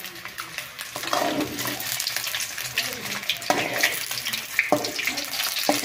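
Peeled boiled eggs frying in hot oil in a metal kadhai, a steady sizzle and crackle. A spatula knocks against the pan three times in the second half.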